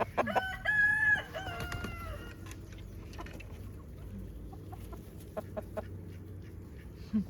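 Chickens clucking, with a rooster crowing once early on: a drawn-out call from about half a second in that tails off by about two seconds in. Scattered short clucks follow.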